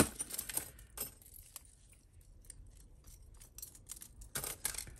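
Metal costume jewellery (bangles and chains) clinking and jangling as it is handled and sorted, with a cluster of louder clinks at the start and again near the end.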